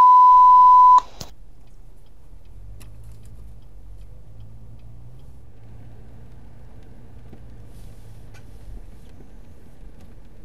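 A loud, steady electronic beep tone for about the first second, cut off abruptly, then the quiet, steady low rumble of a car cabin rolling slowly along a street.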